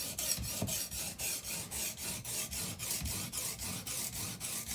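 A wet, coarse diamond sharpening stone on an Edge Pro Apex guide rod, scraped rapidly back and forth across a chef's knife blade, about four to five strokes a second. This is thinning, grinding steel off the blade behind the edge.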